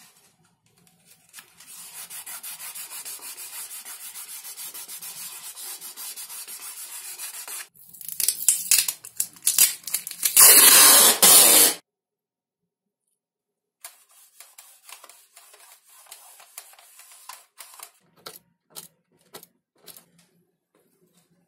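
Hands rubbing a paper sticker down onto a foam wing for several seconds, then clear packing tape pulled off its roll in a loud rip lasting over a second, about ten seconds in. Light crackles and ticks of the plastic tape being handled and smoothed follow.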